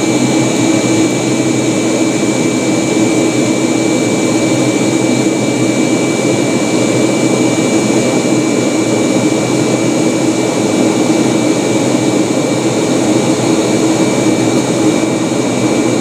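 Steady cabin noise of a Boeing 757-200 in flight: its Pratt & Whitney PW2000 jet engines and rushing air heard from inside the cabin, an even noise with a low hum and a faint high whine running through it.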